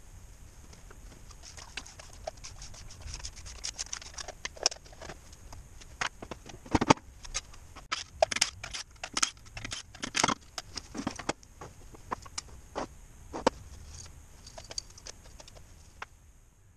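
Metal parts of a JATCO JR403E automatic transmission clinking and knocking as they are handled and pulled apart by hand: irregular sharp clanks, with a busier, louder run of them in the middle.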